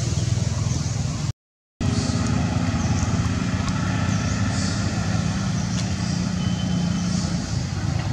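A motor vehicle engine running steadily, a low rumble with a steady hum in it. The sound cuts out completely for half a second about a second and a half in.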